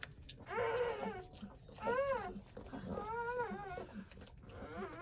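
Newborn Doberman puppies crying: four short rising-and-falling squeals about a second apart, the last one fainter.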